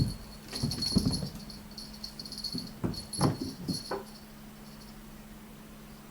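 A pet animal making short vocal sounds in two clusters, about a second in and again around three seconds in, with a sharp click right at the start.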